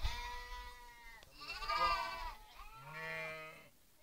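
Sheep bleating: three drawn-out bleats one after another, the middle one the loudest.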